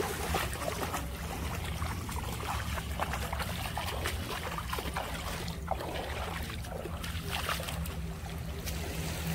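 Shallow water lapping and splashing at the shoreline around a wading person, over a steady low rumble.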